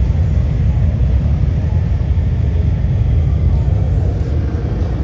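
Motorcycle engines running with a loud, steady, low rumble.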